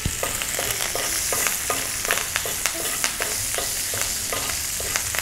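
Butter sizzling in a hot pan as a metal spoon bastes a monkfish fillet with it, with repeated light clicks of the spoon against the pan, about two or three a second.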